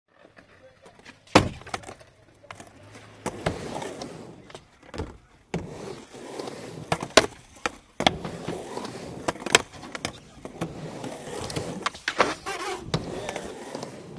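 Skateboard wheels rolling on concrete, broken by repeated sharp clacks and slaps of the board hitting the coping and the ground; the loudest clacks come about a second and a half in, about seven seconds in and near ten seconds.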